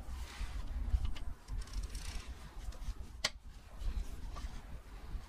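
Ratchet wrench with a 6 mm Allen bit working the stub axle retaining bolt out of the gearbox, the bolt not tight. Metal scraping and light ratchet clicks, with one sharp click about three seconds in.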